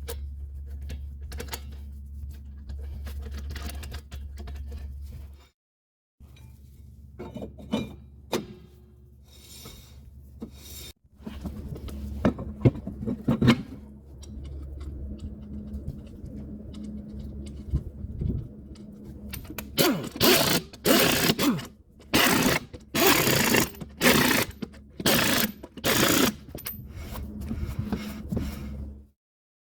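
Hand-tool work on metal: scraping and knocks over a steady low hum, then a run of loud, short, hissy strokes over the last third.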